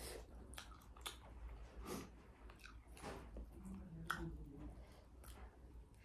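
A person chewing a mouthful of food close to the microphone, with soft wet smacks and scattered small clicks; one sharper click about four seconds in.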